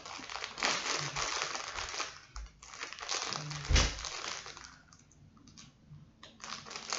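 Package wrapping crinkling and rustling as it is pulled and torn open by hand, with a single thump a little under four seconds in; the handling eases off for a couple of seconds, then resumes near the end.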